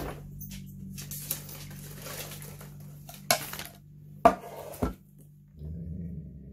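A bowl being handled and set down: scraping and light knocks, then three sharp clacks a little past the middle, the second the loudest. A low steady hum starts near the end.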